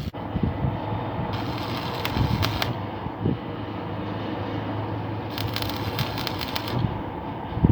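Electric arc welding on a steel deck. The arc crackles and sizzles in spells of about a second and a half, starting and stopping abruptly as the welder strikes and breaks it, over a steady low hum.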